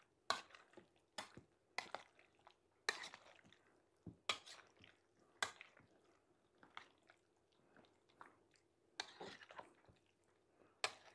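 A spoon mixing mayonnaise-coated potatoes and eggs in a ceramic bowl: faint wet squishing, with sharp taps of the spoon against the bowl about once a second and a quick cluster of taps near the end.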